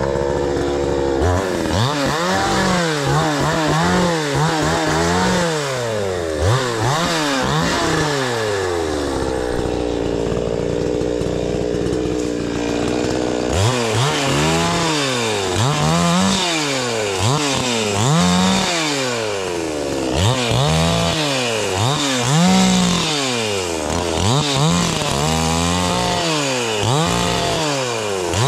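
Two-stroke chainsaw engine revving up and dropping back again and again, about once a second. It is held at a steadier speed for a few seconds near the middle.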